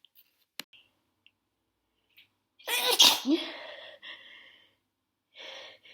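A person sneezes once, loudly, about two and a half seconds in: a short catch of breath, then the explosive sneeze with a voiced 'choo' that trails off over about a second and a half, from a nose irritated by dust. A short breathy sound comes near the end.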